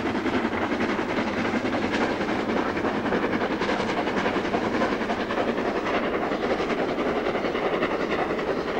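The steam locomotive Flying Scotsman, an LNER A3 Pacific, hauling its train of coaches past at speed: a steady, dense running noise that holds without a break.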